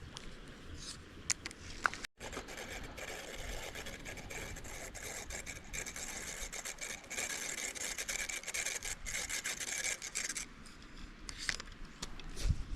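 Fishing reel being cranked to retrieve a small crankbait: a steady run of fast ticks that starts about two seconds in and stops about ten and a half seconds in.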